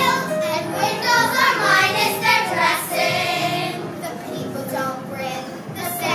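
A chorus of children singing a show tune together.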